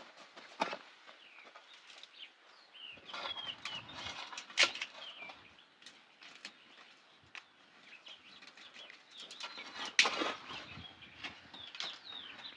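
Birds chirping, with rustling and two sharp knocks, the first about a third of the way in and the second near two-thirds.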